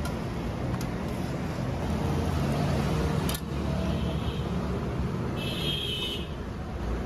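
Busy street ambience: a steady low rumble of road traffic, with a few sharp clicks and a brief higher-pitched sound a little before the end.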